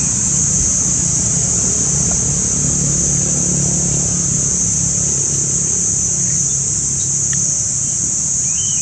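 Steady, high-pitched buzz of cicadas over a low, engine-like rumble, with a faint short chirp near the end.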